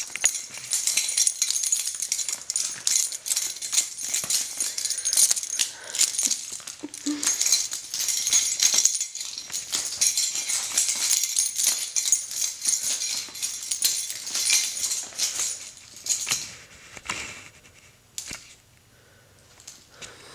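Metal buckle, studs and tags of a leather dog collar jingling and rattling in quick, irregular clicks as a puppy shakes and chews it, dropping to a few faint clicks near the end.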